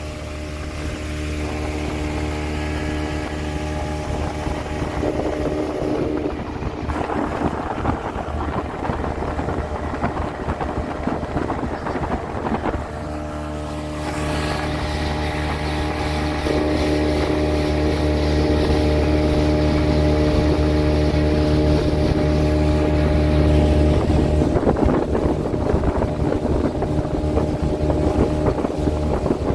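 Speedboat engine running steadily at speed, a low hum with wind buffeting the microphone and water rushing past. The engine note weakens briefly a little before halfway, then comes back a little louder.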